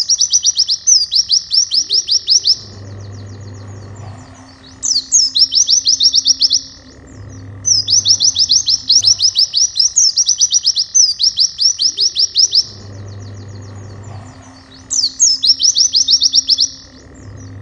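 Pleci (white-eye) song in the fast 'nembak' style: runs of very quick rising high notes, about ten a second, each run lasting about two seconds and repeated after short pauses. Soft background music with a guitar plays underneath.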